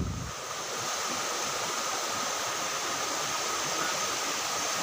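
Steady rushing noise, even and unbroken, with a faint thin steady tone above it.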